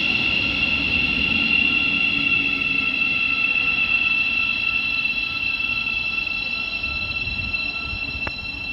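A Thameslink Class 700 electric multiple unit pulling away, its traction equipment giving a steady high whine over a low rumble of wheels on rails, fading as the train recedes. A short sharp click near the end.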